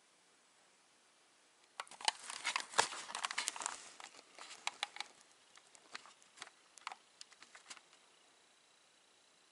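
Irregular rustling, crinkling and clicking handling noise that starts about two seconds in, is densest for the first two seconds and thins to scattered clicks before stopping near the end.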